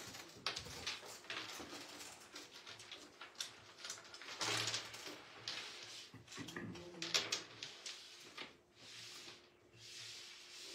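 Carrom striker slid and tapped on the board as the player lines up his shot, then flicked, with a sharp clack about seven seconds in.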